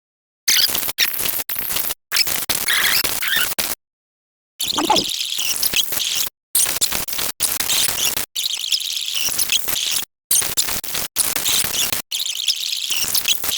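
A rapid string of short, high-pitched squeaky sound-effect clips, each cut off abruptly with brief dead-silent gaps between them.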